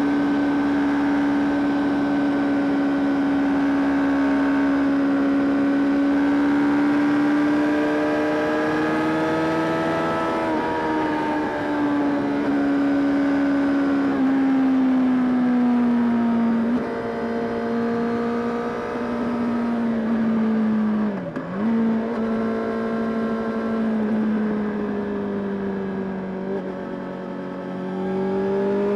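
Honda CBR600RR (PC37) inline-four engine running at steady throttle on the road, its pitch holding level, easing lower about a third of the way in, dropping sharply for a moment about two-thirds through, then climbing again near the end.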